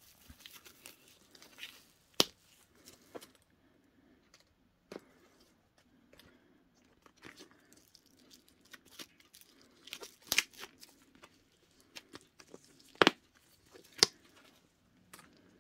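A coated-canvas pouch being handled: soft rustling and crinkling with scattered sharp clicks, the loudest about two seconds in and again around ten, thirteen and fourteen seconds.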